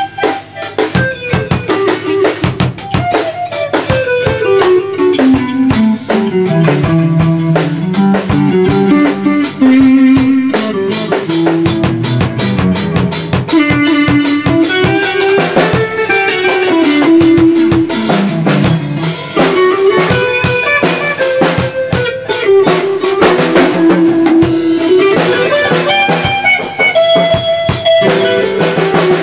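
Rock band jamming loudly: electric guitar over a busy drum kit, with a melodic line that slides down and back up in pitch.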